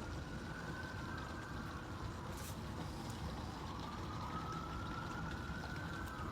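Boat motor running steadily with a low rumble, and a faint whine that slowly rises and falls twice.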